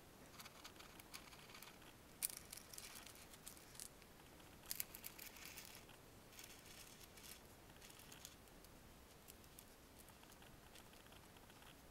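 Faint rustling and crinkling handling noise in short bursts, with a sharp click about two seconds in and another louder cluster of crackles near the middle.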